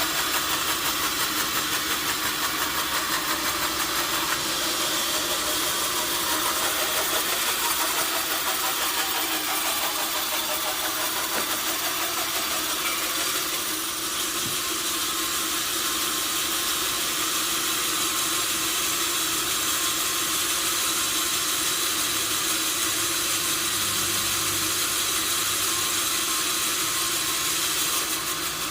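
Sawmill machinery running steadily, a constant mechanical noise with most of its energy high up and a steady hum beneath.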